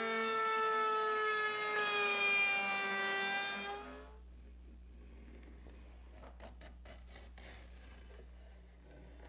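Table-mounted router whining at a steady high pitch as its bit cuts along a wooden kayak paddle shaft, the pitch wavering slightly under load, then cutting off suddenly just under four seconds in. Afterwards a pencil makes faint scratching strokes on the wooden paddle blade.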